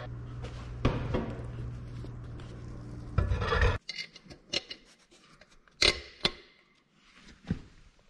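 Hands rubbing and handling a steel tractor wheel over a steady low hum that cuts off abruptly a little under four seconds in. This is followed by a few short, sharp metallic clinks of loose steel sockets being picked through on a concrete floor.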